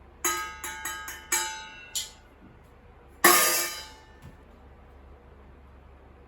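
Hard metal objects clanking together and ringing: five quick strikes in the first two seconds, then one louder ringing clang about three seconds in.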